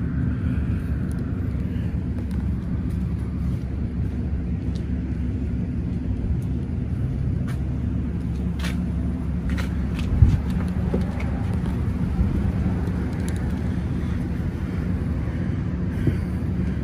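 Heat gun running steadily with an even fan-and-heater hum, used to soften window film so it can be pressed down between the dots of the glass's dot-matrix border. A few faint clicks and one low knock about ten seconds in.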